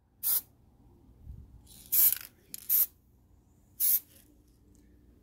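Aerosol can of marbling spray paint giving four short, quick bursts of hiss.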